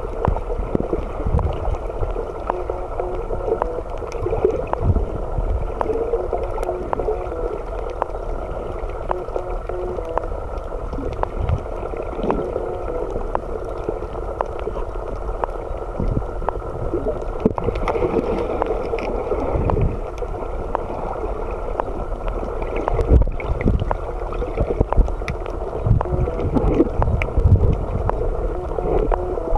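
Muffled underwater sound picked up through a camera's steel waterproof case: a steady dull rush of water with gurgling, many small clicks and frequent low knocks.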